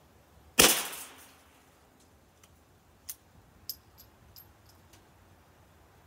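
A single shot from a suppressed Savage Rascal .22 single-shot bolt-action rifle, a sharp crack about half a second in with a short ringing tail. Several light metallic clicks follow as the bolt is worked to reload.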